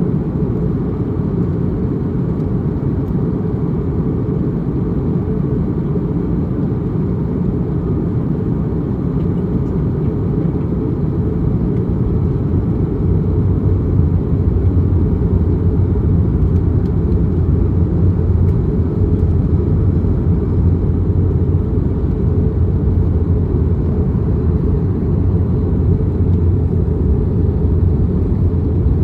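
Steady cabin noise inside an Airbus A321neo airliner on its descent: a loud, even low rumble of airflow and engines. It grows a little deeper and louder about halfway through.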